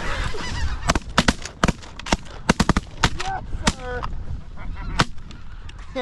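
Ragged volley of about a dozen shotgun blasts from several hunters shooting at incoming speckled-bellied (greater white-fronted) geese, packed into the first four seconds with one more about five seconds in. Geese are calling in between the shots.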